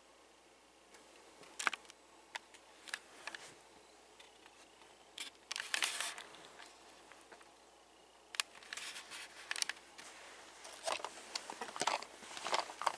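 Handling noises of a plastic toy truck and its parts: irregular sharp clicks and knocks with short stretches of scraping and rustling.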